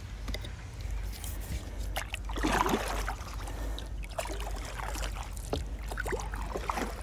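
Stand-up paddleboard paddle strokes in calm water: the carbon paddle's blade dipping and pulling, with splashing and dripping, louder about two and a half seconds in. A steady low rumble runs underneath.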